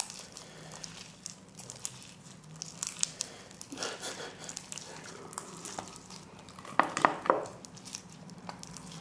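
Hands kneading and pulling sticky slime, giving small wet clicks and crackles throughout, with a few louder snaps about seven seconds in.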